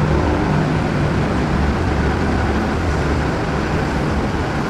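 Steady low rumbling background noise with a constant hum, with no distinct strokes or events.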